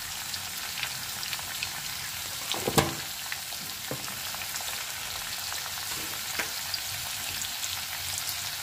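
Cuchia (mud eel) pieces, tomatoes and turmeric frying in mustard oil in a steel kadai: a steady sizzle with fine crackles, and a sharp click about three seconds in.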